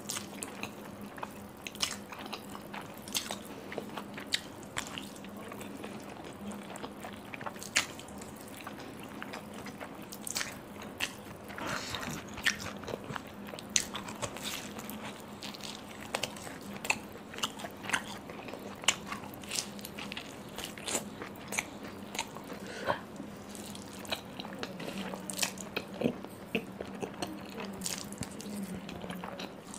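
Close-miked eating: chewing mouthfuls of noodles and biting into fried dumplings, with many irregular sharp, wet mouth clicks.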